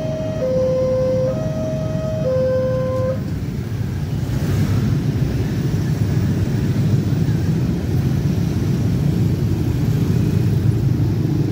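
Railway level-crossing warning alarm sounding an alternating high-low two-tone call, each tone just under a second, which stops about three seconds in as the barrier lifts. After that comes the steady running of many motorcycle engines as the waiting traffic rides over the tracks.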